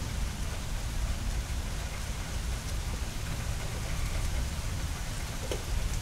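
Steady rain falling during a thunderstorm, an even hiss with a deep low rumble beneath it. A few faint drip ticks stand out, one near the end.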